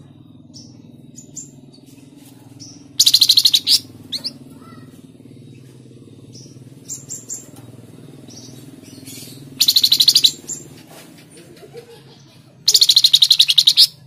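Caged flamboyan (tledekan jati) songbird singing three loud bursts of fast repeated high notes, about three, ten and thirteen seconds in, with faint short chirps between them.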